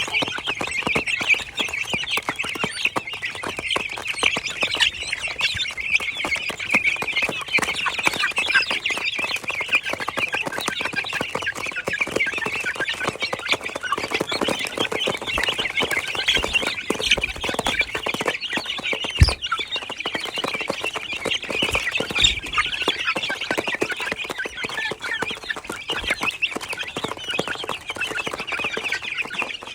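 A flock of chicks peeping nonstop, a dense high-pitched chorus, with one sharp knock about nineteen seconds in.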